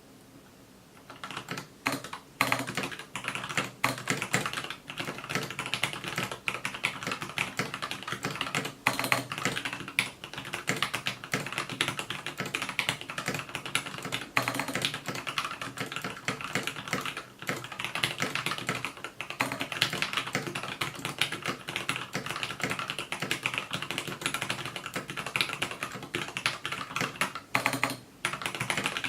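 Typing on a TADA68 mechanical keyboard with lubed Gateron Yellow linear switches and Vortex PBT OEM-profile keycaps: rapid, continuous key clacks that begin about a second in, with a brief pause near the end.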